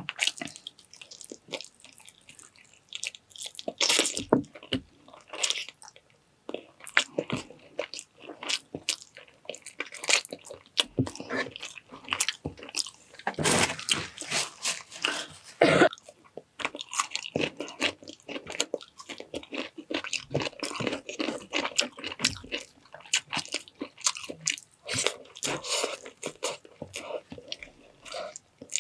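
A person eating close to the microphone: biting and chewing a meal of chicken bistek and rice, with crunching bites in an irregular string of short clicks.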